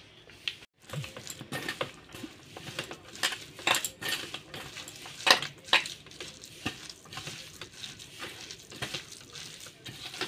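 A hand mixing and squeezing a wet fish roe, onion and flour batter in a stainless steel bowl: irregular squelches with clinks and scrapes of fingers against the metal.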